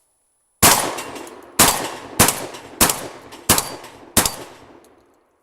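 Mossberg 9200 gas-operated semi-automatic 12-gauge shotgun firing six rapid shots of target loads, a little under a second apart, each shot trailing off in an echo.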